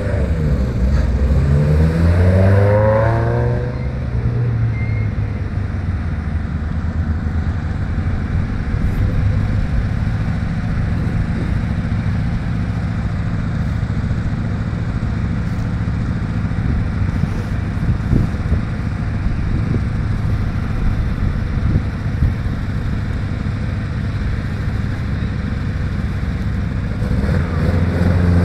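Rally car engines: one accelerates hard in the first few seconds, its pitch climbing steeply, then a steady engine drone carries on, and another car starts accelerating near the end.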